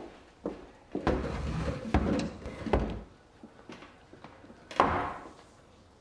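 Knocks and thuds of a wooden chair being moved and climbed onto, with a low scraping rumble between the knocks from about one to three seconds in; a single louder knock near the end.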